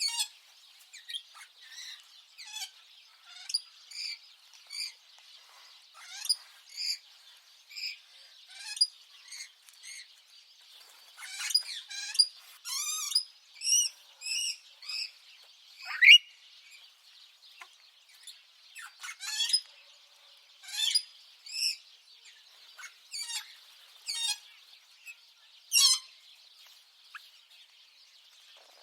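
Budgerigar chirping: short high calls about once a second, with quicker warbling runs in between and one louder call about halfway through.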